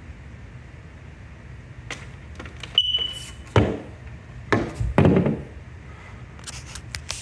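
A smoke alarm gives one short high beep a little under three seconds in, amid clicks and knocks of handling, followed by several dull thumps.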